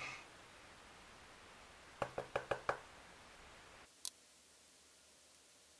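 Five quick, light knocks in under a second, a makeup brush being tapped against the contour palette to shake off excess powder, followed about a second later by a single short click.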